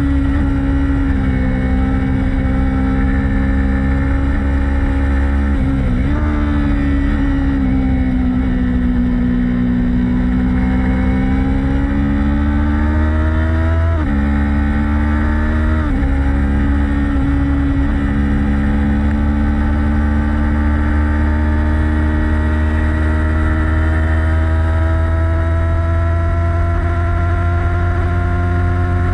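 Motorcycle engine running hard on a race track, its pitch climbing and easing with the throttle and dropping sharply at several gear changes, over a steady low rumble.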